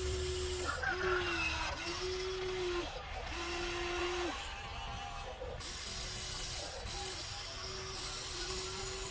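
Small electric gear motors of a radio-controlled toy construction vehicle whining in short runs of about a second, starting and stopping repeatedly as the controls are worked.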